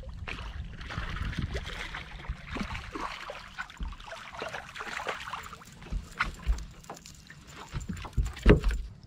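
Small striped bass splashing at the surface as it is reeled to the boat, then a loud thump near the end as it is swung aboard onto the deck.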